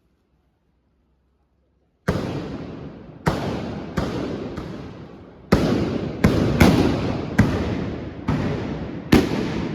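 Trabucs, the Catalan blunderbusses, firing blank black-powder charges: about ten loud shots in ragged, irregular succession, each with a long echoing tail. They start after about two seconds of near silence.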